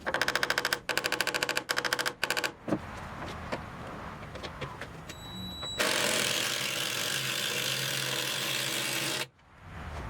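Power impact driver hammering in four or five short bursts of rapid rattling impacts as bolts are backed out. About six seconds in, a steady hiss starts and lasts about three seconds before cutting off suddenly.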